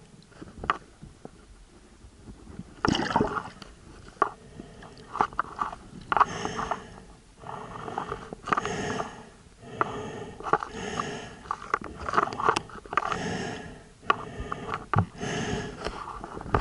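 Muffled water sloshing and swirling against an underwater camera, in irregular bursts about once a second with a few sharp clicks.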